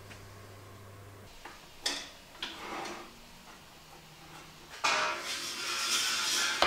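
A couple of sharp metal knocks, then steel tube stock scraping and sliding along a steel rack, a loud, rough rasping scrape with some metallic ringing from about five seconds in.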